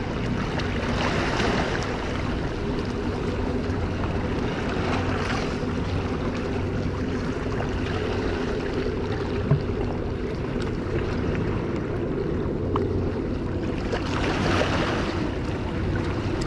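Small waves washing against the rocks of a jetty, with gusts of wind on the microphone swelling a few times and a steady low hum underneath.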